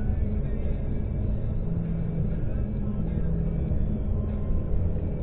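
Car tyres running over the open steel grid deck of the Mackinac Bridge, heard from inside the cabin: a steady low drone with a hum.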